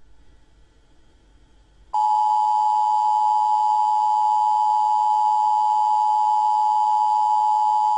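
Emergency Alert System attention signal: a steady two-note electronic tone, starting abruptly about two seconds in after a brief faint hum, and holding unchanged.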